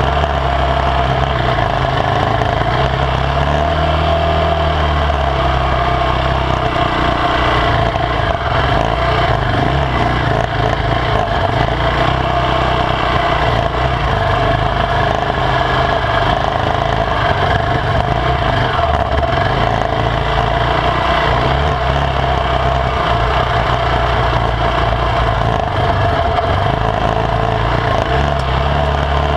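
KTM 450 MXC enduro bike's single-cylinder four-stroke engine running under way on a dirt trail, its pitch rising and falling with the throttle, with a rise and drop about four seconds in.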